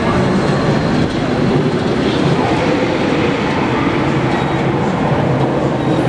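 Steel roller coaster train on the Incredible Hulk Coaster running along its track with a loud, steady rumble of wheels on rail.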